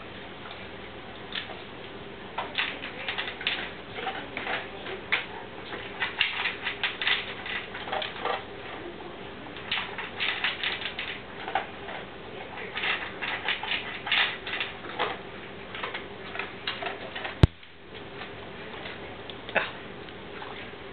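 A Great Dane and a kitten eating dinner together, heard as irregular runs of crunching and clicking food. A single sharp click about seventeen seconds in is the loudest sound.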